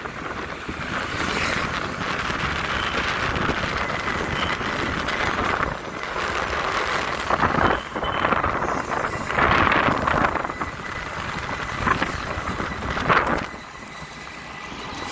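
Wind rushing over the microphone of a camera carried on a moving vehicle, over the steady noise of road traffic. The noise swells and eases several times and drops off near the end.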